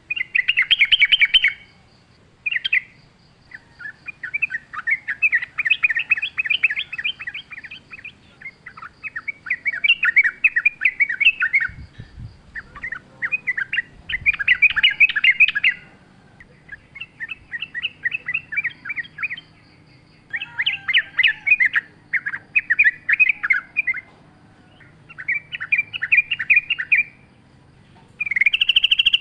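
Yellow-vented bulbul singing: a string of rapid, chattering song phrases, each a second or two long, separated by short pauses.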